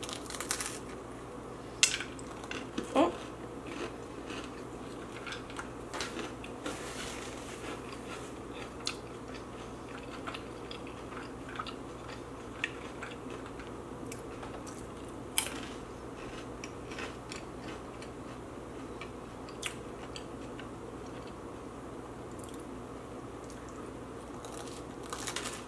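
Close-up eating sounds: chewing a cream-cheese bagel topped with Flamin' Hot Cheetos, with scattered sharp crunches, the loudest about 2, 3 and 15 seconds in, over a steady low hum.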